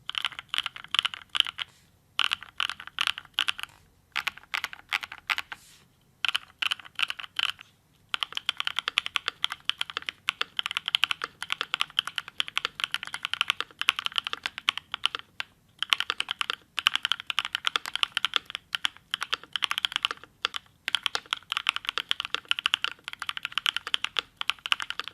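Fast typing on a Wind Studio Sin65 65% mechanical keyboard with an aluminium plate, no foam and GMK-profile keycaps: a quick run of key clicks, broken by short pauses in the first eight seconds and then steady to the end.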